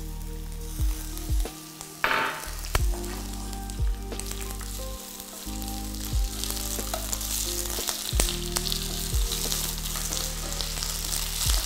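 Curry leaves sizzling and crackling as they fry in hot oil in a frying pan, stirred with a wooden spatula. A sudden loud burst of sizzle comes about two seconds in, and the sizzle grows brighter in the second half.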